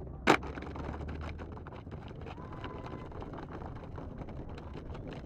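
A drill squad moving in unison, with one sharp crack from the squad's movement about a third of a second in, followed by the soft rustle and shuffle of many people holding and shifting position, with some wind on the microphone.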